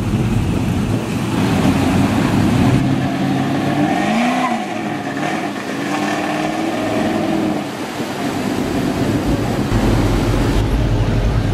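Car engines running as cars move through a parking lot, with the revs rising and falling a few times around the middle. A deeper low rumble takes over near the end.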